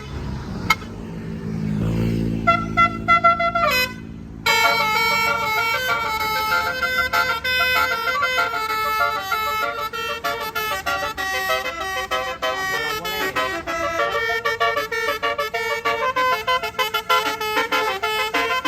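A bus's telolet Basuri musical horn: after the bus engine and a few short held horn notes, from about four and a half seconds in the horn plays a fast melody of quickly changing notes.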